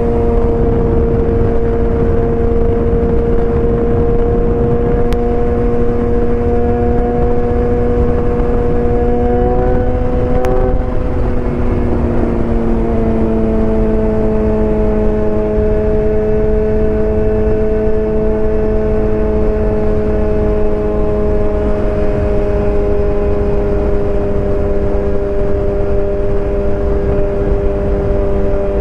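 BMW S1000R's inline-four engine running steadily at a constant, loud drone, its pitch dipping slightly about ten seconds in and then holding.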